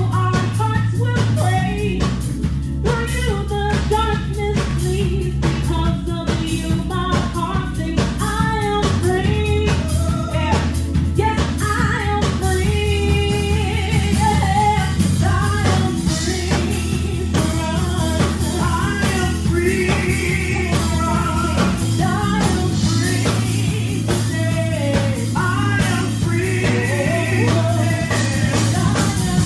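Gospel praise song with singing over a live band: drum kit and held bass notes under the sung melody. The drum beat is busiest in the first dozen seconds and thins out after that.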